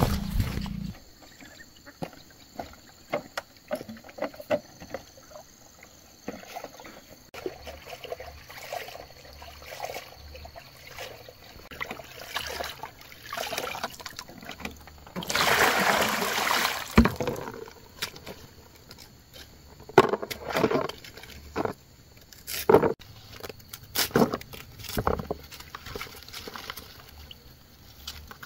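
Water sloshing and pouring, with scattered knocks and clicks of handling and a louder rush of water about halfway through.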